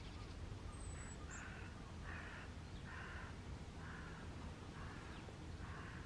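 A crow cawing in a steady series of about six harsh caws, roughly one a second, starting about a second in.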